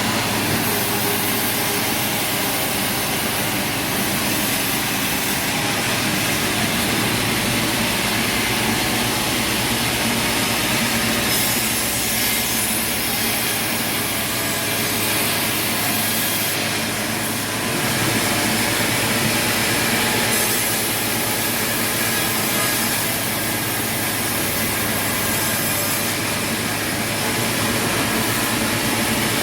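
Sawmill saw cutting through wood, a loud steady grinding noise with the machine running under it and no break in the cut.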